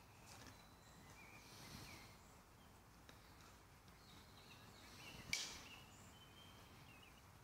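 Quiet woodland ambience with faint bird calls and one sharp snap a little past halfway.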